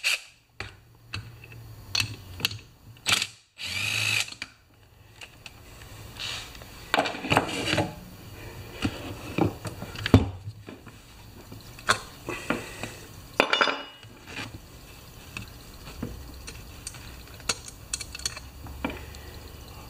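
A cordless drill turning a 12 mm socket in short runs to back out the chainsaw's muffler bolts, among sharp clicks and knocks of metal tools and muffler parts being handled.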